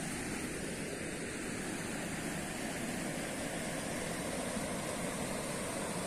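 Steady rushing of a waterfall and river rapids, an even noise without breaks.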